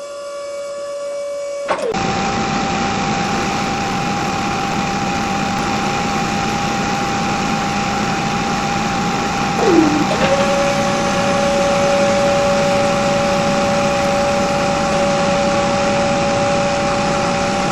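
Small electric motors of a homemade mini borewell drilling machine running, a steady mechanical whir with a high whine. About ten seconds in, one whine dips sharply in pitch, then comes back and holds steady.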